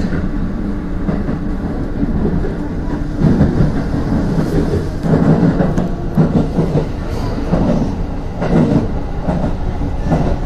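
Electric commuter train running between stations, heard from inside the rear cab: a steady low rumble of the wheels on the rails, with irregular louder clatter about once every half-second to second.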